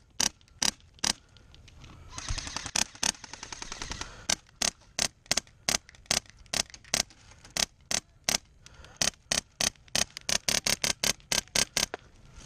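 Airsoft rifle firing single shots in quick succession: dozens of sharp cracks, a few a second, coming faster near the end. About two seconds in there is a quicker, quieter rattle of shots.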